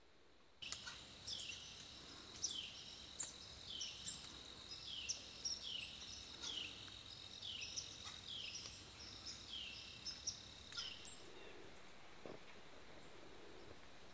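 Songbirds singing outdoors: a quick series of short, high, falling notes, about two a second, over a steady high tone, stopping about eleven seconds in.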